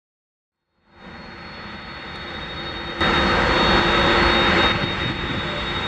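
Jet engines of a taxiing McDonnell Douglas MD-11 trijet freighter: a steady whine with a thin high tone over a rumble. It fades in about a second in and gets much louder about three seconds in.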